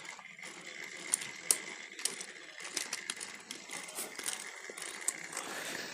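Motorized toy trains running on a track: a faint steady motor whine under scattered clicks and plastic rattles.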